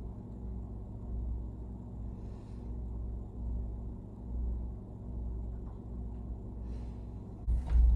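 Steady low hum, with a couple of faint, brief rustling sounds.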